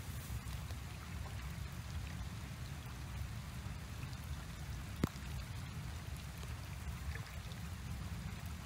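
Steady low outdoor rumble with a faint hiss, broken once by a single sharp click about five seconds in.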